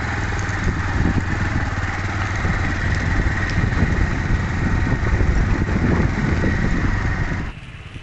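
A vehicle engine running while driving along a rough dirt track, with a heavy low rumble and a steady higher whine. It cuts off suddenly near the end.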